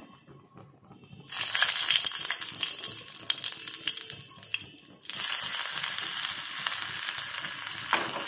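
Hot oil in a small aluminium tadka pan bursts into a sizzle about a second in as dried red chillies are dropped in for the tempering. The sizzle dies down, then flares up again about halfway through as more of the tempering, likely chopped ginger, goes in, with a sharp crackle near the end.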